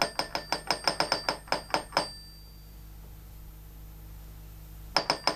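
Cartoon sound effect of a hand-cranked gear winch: quick, ringing metallic ratchet clicks, about five a second, for about two seconds. After a pause of about three seconds the clicking starts again near the end.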